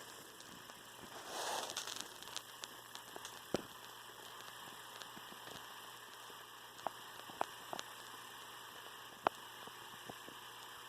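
Faint steady hiss with scattered single small clicks and taps, and a brief rustle about one and a half seconds in.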